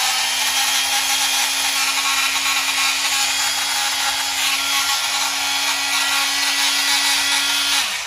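Older brushed (non-Fuel) Milwaukee M12 oscillating multi-tool running unloaded at its top speed setting, a steady buzzing hum with a gritty rattle, switched off at the very end. The rattle sounds like something grinding around inside, like popcorn kernels, and the tool runs rougher than the smoother brushless M12 Fuel model.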